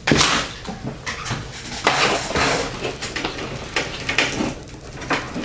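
Rummaging and handling loose SATA power cables: irregular clattering, scraping and rustling of cables and plastic connectors, loudest at the start.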